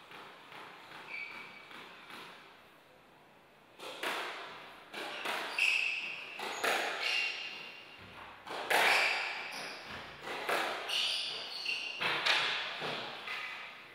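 Squash rally starting about four seconds in: the ball cracks off the racquets and the court walls again and again, with rubber-soled shoes squeaking in short high chirps on the wooden floor, all echoing in the enclosed court.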